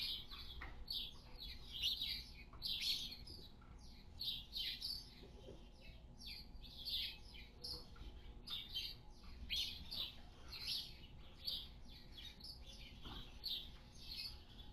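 Small birds chirping in a barn: a steady stream of short, high chirps, several a second, overlapping from more than one bird.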